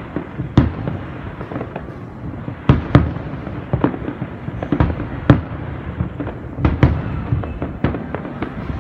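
Aerial firework shells bursting: irregular bangs, several of them loud, over a continuous rumble of smaller bursts.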